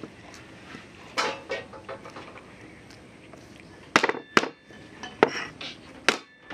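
Cleaver chopping garlic on a round wooden chopping board: a few sharp knocks, the loudest four coming roughly a second apart in the second half.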